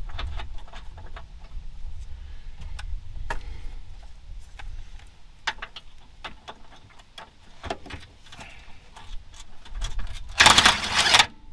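Scattered metallic clinks and clicks of hand tools and bolts being worked on a differential, with one loud, harsh burst of noise lasting under a second near the end.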